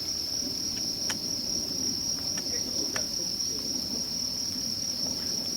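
Steady high-pitched chorus of crickets, with a few sharp crackles from the wood fire burning in the stove.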